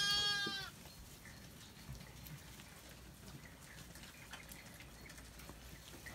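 A Zwartbles lamb bleats once, a high call lasting under a second, followed by faint scattered ticks and rustles.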